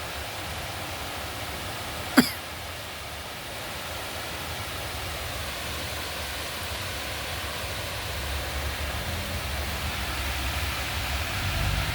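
Heavy rain falling steadily with an even hiss. A single sharp click sounds about two seconds in, and a low rumble builds toward the end.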